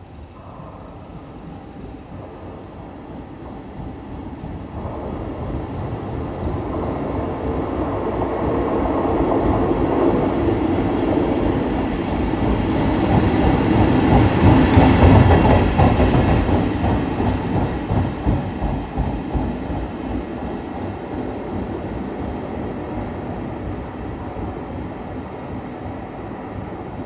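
EF65 electric locomotive running light through a station, wheels clattering on the rails. It grows louder as it approaches, is loudest passing close about halfway through, and then fades as it runs away.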